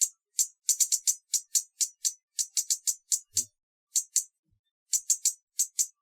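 Hummingbird giving runs of short, high-pitched chip calls, several a second, broken by brief pauses, the longest a little past the middle.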